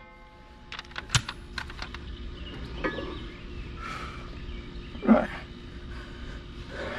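Light metal clicks and taps from tools and hardware being handled while replacing boom-mower stump-jumper blades. A cluster of them comes about a second in, and a short low sound about five seconds in.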